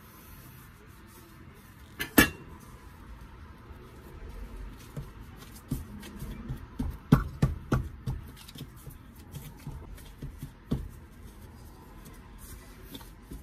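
A metal bench scraper knocking against the counter through a silicone baking mat as it cuts through scone dough, then soft thumps and handling noise as the dough halves are lifted and set down. The sharpest knock comes about two seconds in, a cluster of thumps around seven to eight seconds in, and one more near eleven seconds.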